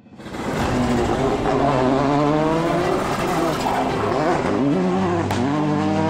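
Volkswagen Polo R5 rally car engine at full throttle, its pitch climbing and dropping again and again with gear changes, fading in at the start; a short sharp click about five seconds in.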